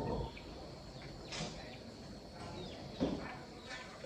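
Small birds chirping, a scattering of short falling chirps over a faint steady background hiss. A brief, louder low sound comes about three seconds in.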